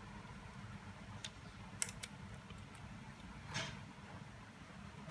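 A few light clicks and one brief soft rustle over a low steady hum.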